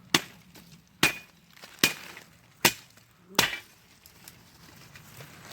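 A blade chopping into wood: five sharp, evenly paced strikes, about one every 0.8 seconds, then the chopping stops.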